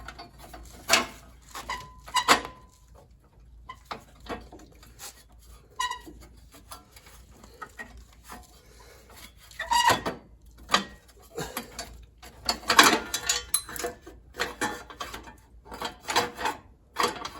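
Irregular metallic clinks and clatter of hand tools and small metal parts being handled, several clinks leaving a short ringing tone.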